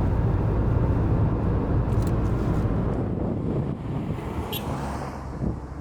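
Car interior road noise while driving: a steady low rumble of tyres and engine heard from inside the cabin, easing off somewhat after about three and a half seconds.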